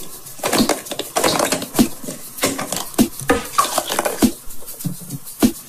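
Hollow plastic toy egg being handled and twisted open: irregular clicks and clacks of the plastic shell halves, with some rubbing.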